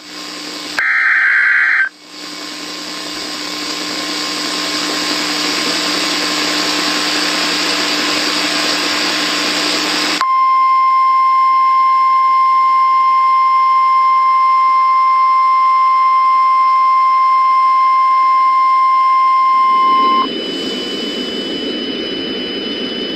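Emergency Alert System sequence: the last of the screechy SAME header data bursts ends about 2 s in. About eight seconds of hissing static follow, then a loud, steady single-pitch EAS attention tone holds for about ten seconds and cuts off suddenly. A lower, duller noise with a faint high whine is left behind.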